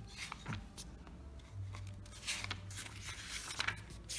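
Pages of a paperback handbook being turned by hand: a string of short, papery rustles and flicks.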